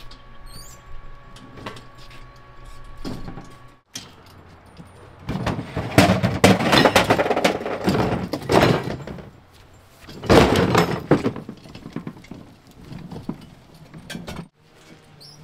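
A steady hum that cuts off abruptly, then loud irregular clattering and rattling in two stretches, the longer one first, from a wheeled cart pulled along a concrete walkway.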